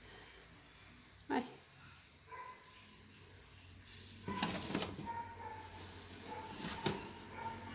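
Toaster oven being handled: a sharp metal clank about a second in, then a steady hiss from about four seconds in, with scraping knocks as the metal baking tray with the pizza is slid out over the rack.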